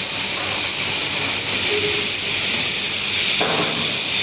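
Steady hiss from an AKH 1000 fiber laser welding machine at work, with a brief sharper sound about three and a half seconds in.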